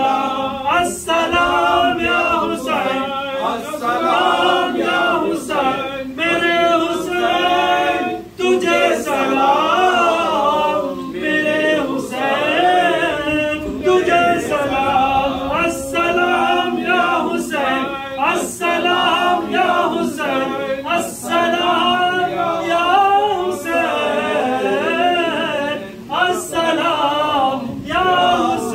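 Men singing an Urdu devotional salaam to Imam Husayn without instruments, one voice leading.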